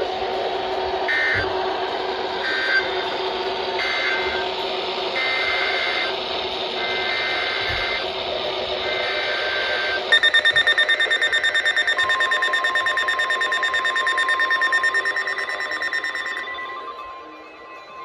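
NOAA Weather Radio broadcast over static: about half a dozen short buzzy bursts of SAME digital alert data, then about ten seconds in a loud, rapidly pulsing alert alarm. About two seconds after that the steady 1050 Hz warning alarm tone starts; it signals a new warning, here a severe thunderstorm warning.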